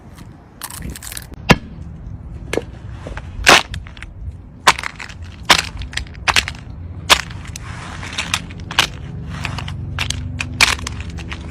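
Something brittle being crushed: a run of about a dozen irregular sharp cracks and crunches over a steady low rumble.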